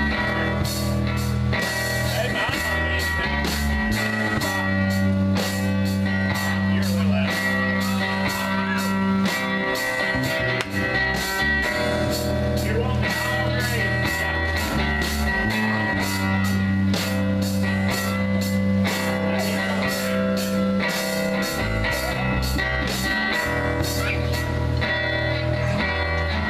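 Live rock band playing: electric guitars over bass guitar and a drum kit keeping a steady beat, with the bass notes changing every few seconds.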